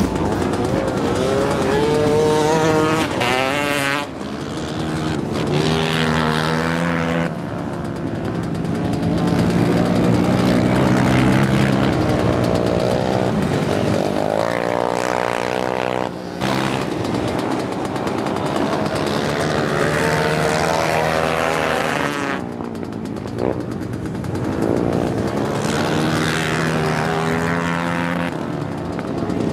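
Racing ATV and motorcycle engines revving hard, their pitch climbing and dropping as the riders accelerate, shift and pass. Several shots are spliced together, so the engine sound changes abruptly a few times.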